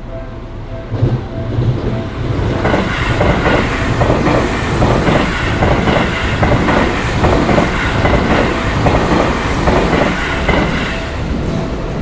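An electric commuter train passes close by at a level crossing, its wheels clacking in an even rhythm over the rail joints. The crossing's pulsing warning bell is heard as the train arrives and again near the end, drowned out while the cars go by.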